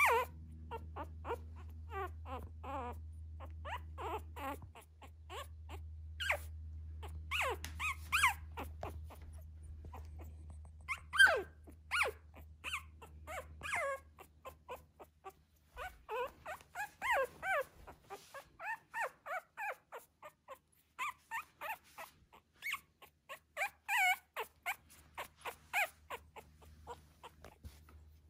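Young miniature Schnauzer puppy whimpering and squeaking in a long series of short, high calls, many sliding down in pitch, coming quicker in the second half.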